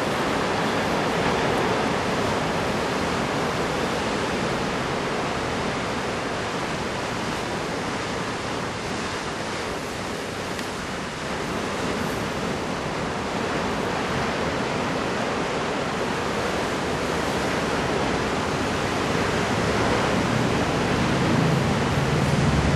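Heavy surf from a large typhoon swell breaking offshore: a steady, even rushing wash of water noise, dipping slightly about halfway and building again near the end.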